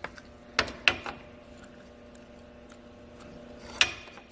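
Steel pry bar knocking against the front differential and the inner end of the front drive axle as it is levered to pop the axle out: a quick cluster of sharp metallic knocks about half a second to a second in, and one more near the end.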